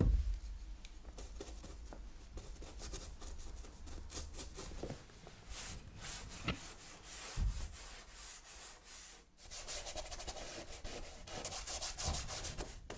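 Paintbrush scrubbing paint onto paper: a dry, scratchy rubbing in many short strokes, busiest near the end.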